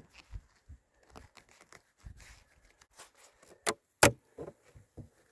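Beehive parts being handled as the hive is opened: a scatter of light clicks and knocks, with two sharp knocks in quick succession about three and a half seconds in.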